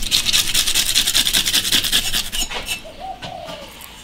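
A knife blade scraping the scales off a whole fish in quick, rasping strokes for a little over two seconds, then a few scattered scrapes.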